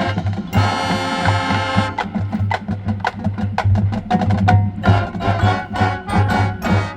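Marching band playing the end of its show: a held full-band chord over a steady low drum pulse, then a rapid string of sharp, accented percussion hits that cuts off abruptly on a final hit near the end.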